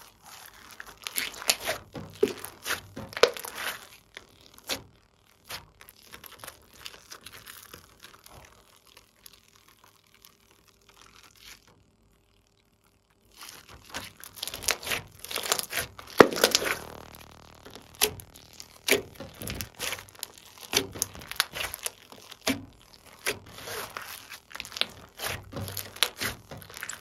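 Hands squishing, stretching and folding glossy slime: a dense run of sticky clicks, crackles and pops as the slime pulls apart and air pockets burst. It stops for about a second and a half near the middle, then picks up again.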